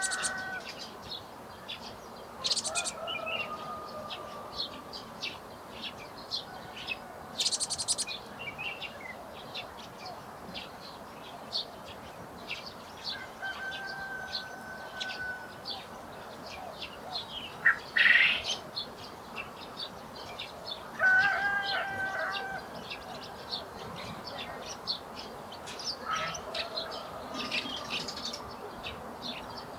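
Small garden birds chirping and calling: many short chirps, with a few whistled notes and high trills scattered throughout.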